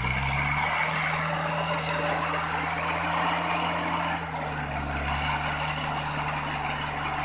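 Old four-wheel-drive pickup's engine held at high revs under heavy load as it struggles up a steep muddy slope; the revs climb in the first half-second and then hold steady.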